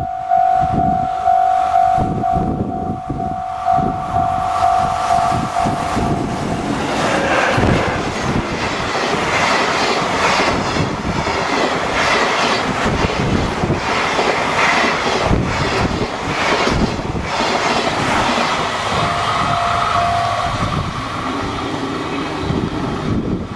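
Level-crossing warning bell ringing steadily, then, about seven seconds in, an EF66 electric locomotive and its train of sleeper coaches pass close by, wheels clattering rhythmically over the rail joints; the bell comes through again briefly near the end.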